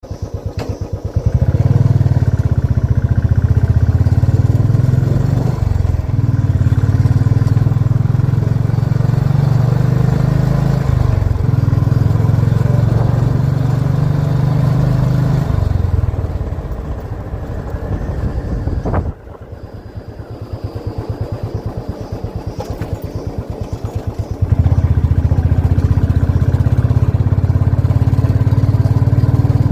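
Royal Enfield motorcycle engine running while riding, with a steady low exhaust thump. About halfway through the engine note eases off and drops, with a sharp click, and near the end it comes back up to a louder, steady pull.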